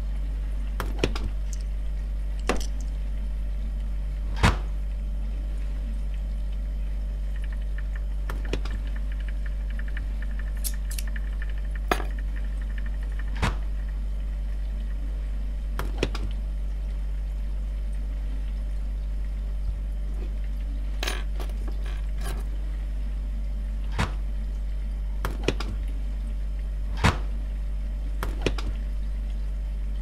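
Steady low refrigerator hum with about fifteen sharp clicks and knocks at irregular intervals, the loudest about four seconds in.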